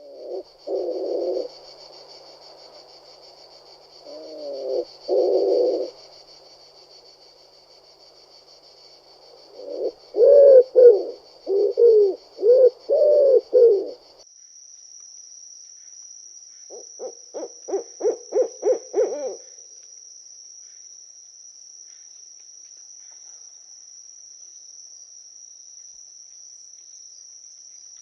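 Low hooting calls of an owl, first in short groups and then, after a change of clip, as a quick run of hoots. A steady high insect trill sounds behind them.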